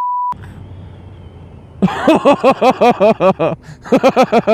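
A short censor bleep, then the steady hum of a sport motorcycle's engine and wind under the helmet camera. From about two seconds in, a man laughs hard in a fast run of short 'ha' sounds, breaking off once before the end.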